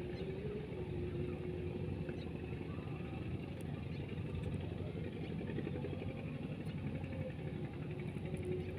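A steady low engine hum runs on unchanged, with a faint droning tone that wavers slightly in pitch.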